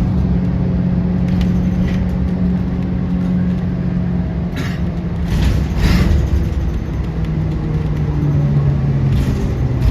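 Aircraft engines running with a loud, steady low hum and rumble; the hum drops a little in pitch about two-thirds of the way through, and a few short hissy bursts come near the middle.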